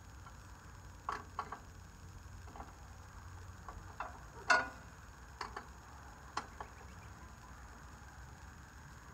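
Scattered light clicks and knocks of hand tools and parts being handled, about ten in all, the loudest about four and a half seconds in.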